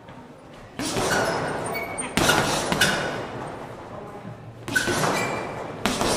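Boxing gloves hitting a hanging heavy punching bag: about five hard punches at uneven intervals, each landing sharply and echoing briefly in a large room.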